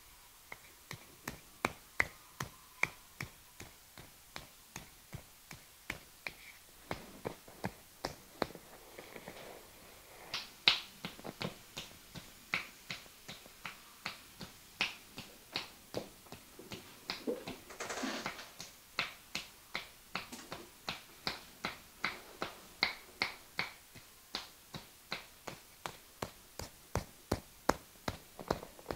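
A long series of sharp, short clicks or taps at an uneven rate of about two to three a second, with a brief rustling hiss about two-thirds of the way through.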